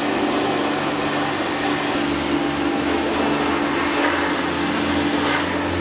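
Steady motor-driven machine noise with a hiss, joined by a low hum about two seconds in.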